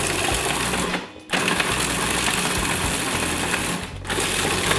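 Cuisinart food processor pulsing, its motor and blade chopping oven-dried bread and Parmesan into fine breadcrumbs. It runs in pulses, stopping briefly about a second in and again just before four seconds.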